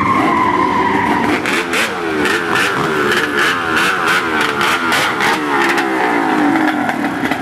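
Race-vehicle engines running in a staging queue: low engine notes waver up and down under a steady high whine, with a run of sharp cracks in the first half.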